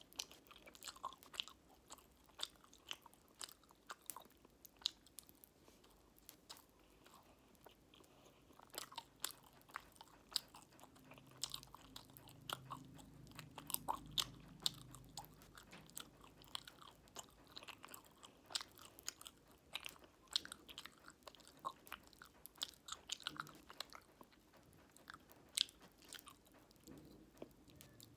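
Close-up eating sounds of fruit jelly with cola-flavoured popping candy: many sharp, irregular crackles and clicks as the candy pops in the mouth, mixed with chewing.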